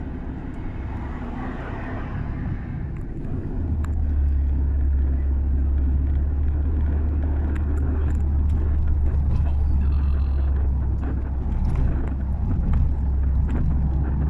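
Steady low rumble and road noise of a moving road vehicle, heard from inside its cabin. The rumble grows louder a few seconds in and holds.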